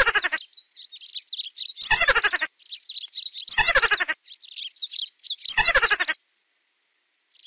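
Birdsong chirping throughout, broken four times, about every two seconds, by a louder short sound effect that slides quickly down in pitch, timed with a cartoon mouse popping up from its burrow.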